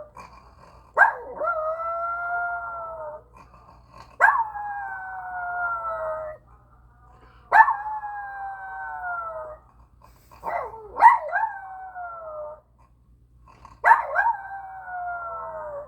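A puppy howling five times, each howl about two seconds long with a sharp start and a slightly falling pitch, the voice carrying a rough, snore-like rasp.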